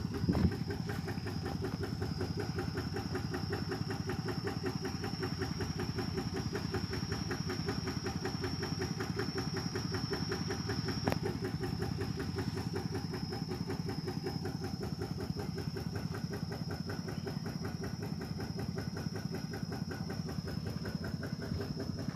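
Tractor engine running steadily under load as it pulls a trailer stacked with timber, its firing pulses even and unchanging, with a single clunk about halfway through. A steady high-pitched insect whine runs above it.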